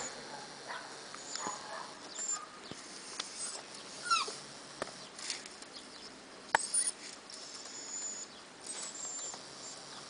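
Puppy whimpering in short, high, thin calls, one sliding down in pitch about four seconds in. A single sharp click comes about six and a half seconds in.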